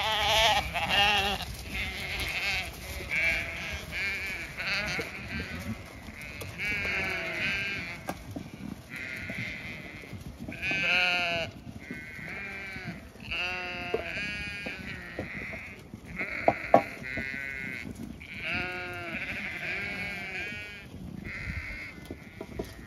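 Zwartbles lambs bleating over and over, many wavering calls overlapping at feeding time. A couple of sharp knocks about two-thirds of the way through.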